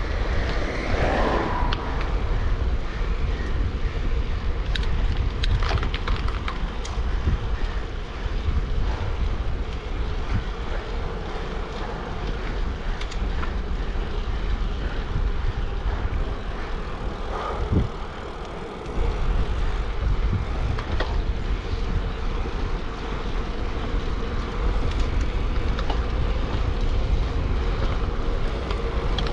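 Wind rumbling over the microphone and road noise from a gravel bike being ridden at speed, with a faint steady hum and occasional small clicks and rattles from the bike. The wind rumble briefly drops away a little past halfway.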